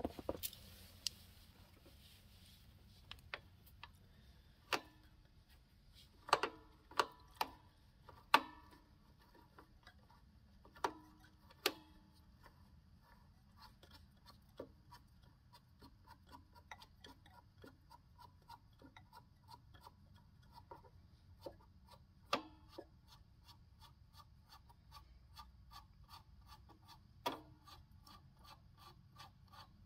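Small metal parts of a motorcycle's drum-brake cable and adjuster clinking and knocking under hand work, then a quick, regular run of small ticks for the second half as the cable's adjuster nut is turned off the threaded end by hand.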